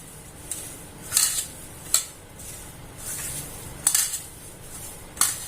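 Spoon scraping and clinking against a bowl while mixing soya chunks with a spice masala, in about six short irregular strokes.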